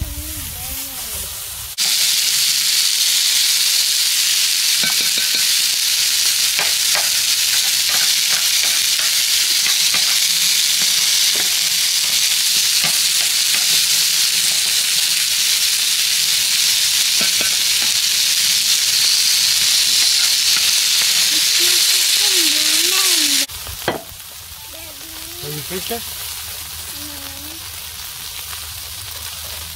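Lamb chop and beef tenderloin sizzling on a hot electric griddle plate, a loud steady hiss. It cuts in suddenly about two seconds in and drops suddenly to a much quieter sizzle a little after twenty-three seconds.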